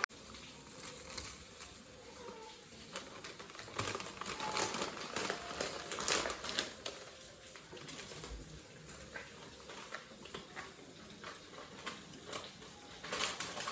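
Scattered light clicks and taps, irregular and fairly quiet, with a faint short call or two.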